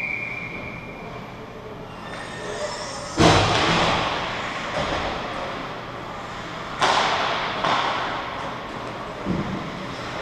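Ice hockey game: two loud bangs about three and a half seconds apart, each ringing and echoing through the rink, then a softer knock near the end.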